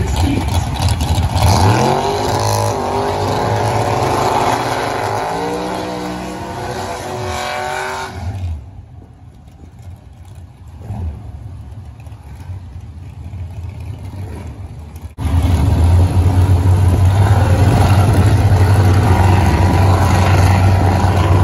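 Drag-racing cars doing burnouts: engines revving hard with rising pitch for several seconds, then dropping away. After a sudden jump, a loud, steady, low engine rumble from the cars waiting at the starting line.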